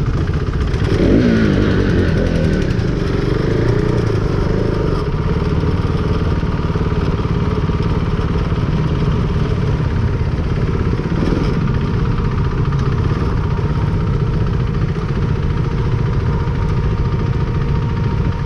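KTM RC390's single-cylinder engine running at low speed in stop-and-go traffic, a steady low rumble. The pitch wavers up and down in the first few seconds and rises briefly once more past the middle.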